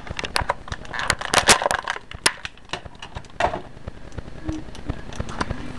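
Irregular crackling and clicking of stiff plastic packaging being handled and pulled apart as an action figure is taken out of its box. The crackling is densest in the first couple of seconds, then thins out.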